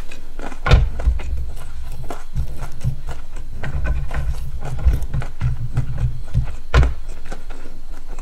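Close-miked chewing of crispy fried food: a steady run of low mouth thumps with crisp crackling clicks, and two louder crunches, one about a second in and one near the end.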